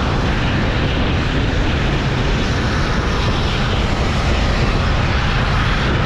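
Passenger train running at speed: a steady rushing noise of wheels on rail and wind across the microphone.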